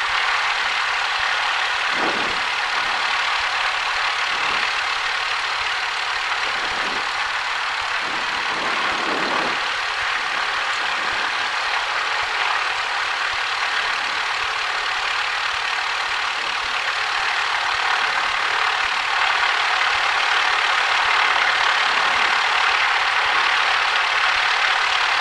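Steady engine and cabin noise of a Cessna 172 running on the ground at low power, heard as an even hiss through the cockpit headset recording with little low end.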